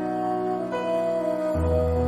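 Background music, an instrumental stretch with held notes; a deep bass note comes in about one and a half seconds in.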